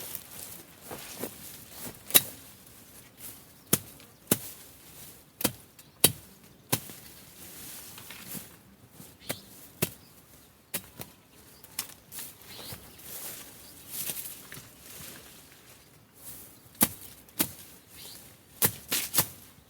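A blade chopping through weeds and plant stalks cut for cattle feed, in irregular sharp strikes. A run of loud cuts comes in the first several seconds, fainter ones follow in the middle, and another quick cluster comes near the end.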